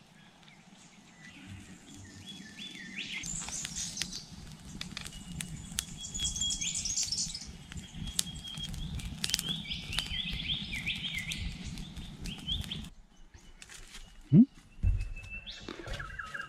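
Campfire of sticks crackling and popping with sharp snaps, while birds chirp and trill around it. About 13 seconds in the sound cuts to a quieter scene with a couple of low thumps.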